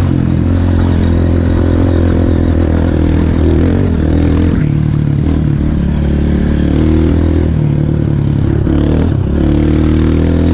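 Honda CRF230F's single-cylinder four-stroke engine running on a trail ride downhill, its engine speed rising and falling several times.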